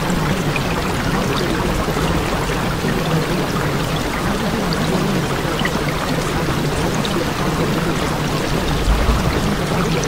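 Steady sound of running water, a continuous even rush with small scattered drip-like ticks.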